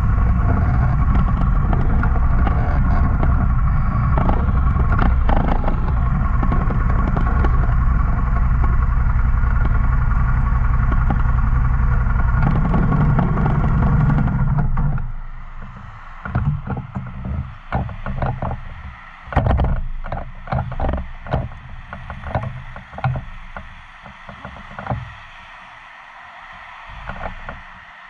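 Motorcycle engine running steadily with a deep rumble, stopping suddenly about fifteen seconds in. After it, a run of irregular knocks and clatter.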